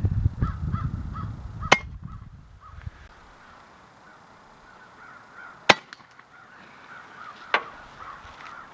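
A flock of crows cawing repeatedly, many short calls. Three sharp clicks stand out, about two seconds in, near the middle and late on, and a low rumble sits under the first three seconds.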